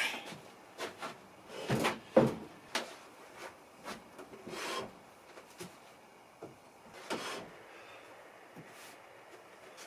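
Cast-iron Atlas 10F lathe bed and headstock being slid and shifted on a plywood bench top: irregular scrapes and knocks, the loudest a scrape and thump about two seconds in.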